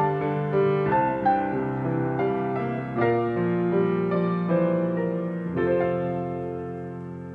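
Solo piano playing slow closing notes, ending on a final chord about two-thirds of the way through that rings on and fades away.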